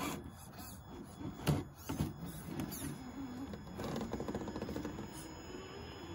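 Small electric motor and gearbox of a Traxxas TRX-4 Ford Bronco RC crawler whining, its pitch rising and falling with the throttle as the truck climbs a rock. There are sharp knocks of the truck against the rock about a second and a half and two seconds in, and a fast rattling for about a second near the four-second mark.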